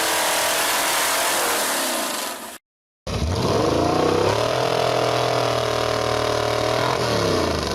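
Large chainsaw sounds. First a loud, even rushing noise, which stops abruptly. After a brief silence, an engine revs up over about a second, holds at high speed, and drops back near the end.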